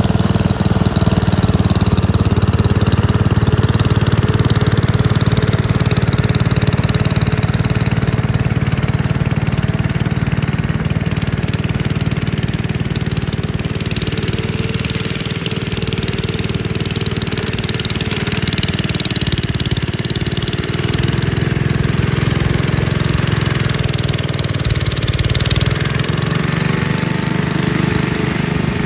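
Gravely Commercial 10A walk-behind tractor engine running steadily while driving its snowblower attachment, the pitch wavering a little about two-thirds of the way through.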